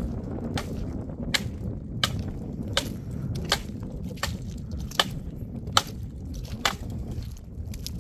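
Regular sharp wooden knocks, about ten of them at roughly one every 0.7 s: a hand tool chopping at the dry branches of a bare tree. Wind rumbles low on the microphone throughout.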